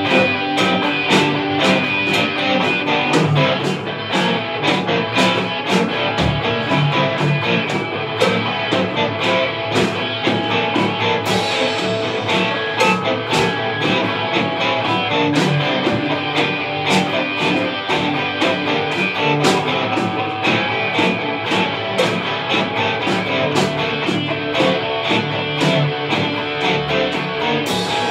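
Instrumental rock played live by two electric guitars, a Stratocaster-style and a Les Paul-style, over a Gretsch drum kit keeping a steady beat.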